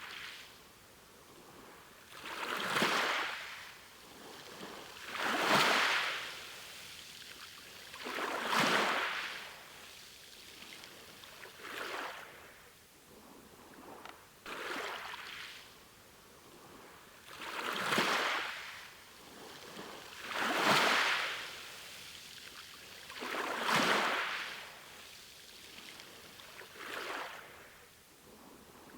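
Sea waves washing in one after another, each a swell of hissing surf that rises and falls away, about every three seconds, some louder than others.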